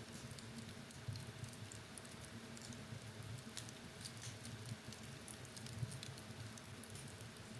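Wood fire crackling in a fireplace: faint, irregular small pops and snaps over a low, steady rumble of the burning logs.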